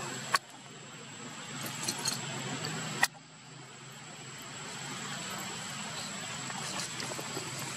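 Steady background hum and hiss with a thin, constant high-pitched tone. Two sharp clicks, about half a second in and about three seconds in, each cut the background down suddenly before it slowly builds back.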